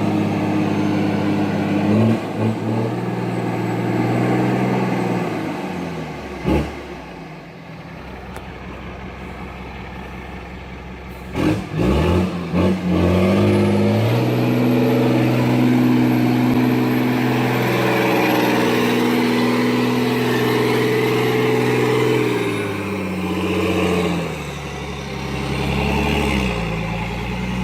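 Heavy vehicle engines running steadily, their pitch shifting a few times, with several sharp knocks in the first half.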